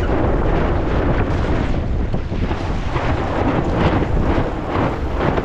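Wind buffeting the microphone aboard a sailboat under way: a steady, loud rush of noise.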